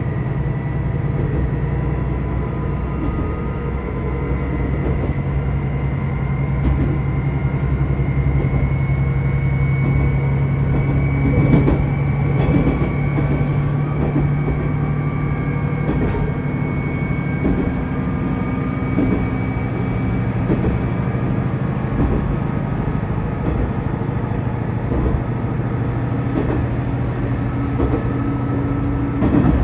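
Tosa Kuroshio Railway 8000 series diesel railcar under way, its diesel engine droning steadily with a thin high whine over the first two-thirds. A few short knocks from the track come through.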